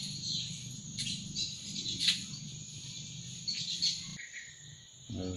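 Outdoor ambience of insects trilling steadily with a few short bird chirps over a low hum; the background changes abruptly about four seconds in.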